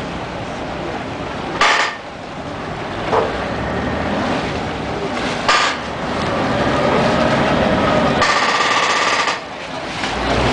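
Venice vaporetto water bus engine running as it comes in and draws alongside a floating landing stage, with a steady rumble and churning water. There are two sharp knocks about two and five and a half seconds in, and a louder, harsher rush lasting about a second near the end as the boat comes alongside.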